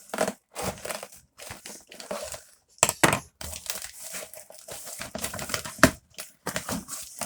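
Parcel packaging being torn open and crinkled by hand, an irregular run of rustling and ripping, with a couple of sharp knocks about three seconds in and just before six seconds.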